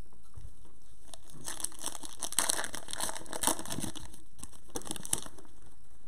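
Foil wrapper of a Panini Prizm basketball retail card pack crinkling and tearing as it is ripped open by hand, with a dense run of crackles in the middle and a short burst again near the end.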